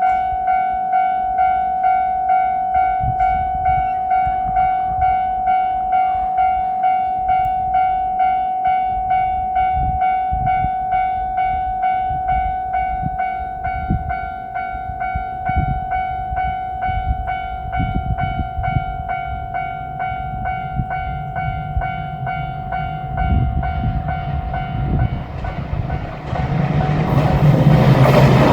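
Japanese level-crossing warning bell dinging in a fast, steady rhythm while a train's low rumble builds. The bell fades out late on, and a diesel limited-express train arrives loudly at the crossing near the end.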